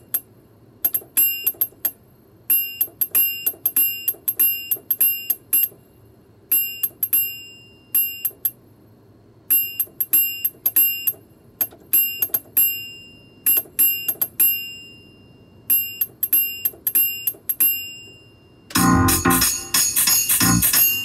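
Electronic keyboard synthesizer played in short, halting phrases of a few quick notes at a time, each note fading quickly, as a half-remembered melody is picked out by ear. About two seconds before the end, a much louder, fuller part with deep bass notes comes in.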